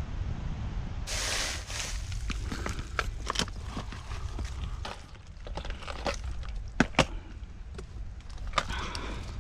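Wind rumbling on the microphone, with irregular clicks and knocks starting about a second in; two sharp knocks close together about seven seconds in are the loudest.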